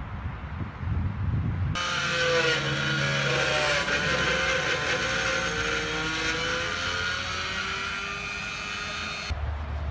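Angle grinder running against the rim of a windmill's wooden brake wheel as the wheel is trued, a harsh whine whose pitch drifts slowly under load. Wind rumbles on the microphone briefly at the start and again near the end.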